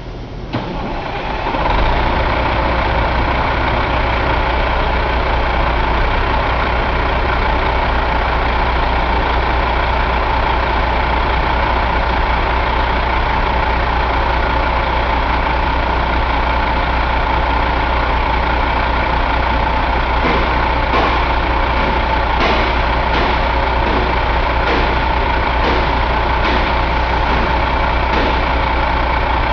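Caterpillar 3406E 14.6-litre inline-six diesel engine running, coming up to a steady idle over the first couple of seconds. A few light clicks sound in the second half.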